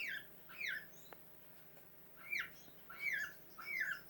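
Cockatiel chirps played through computer speakers: a run of short, quickly falling chirps, about two a second, with a pause of about a second early on.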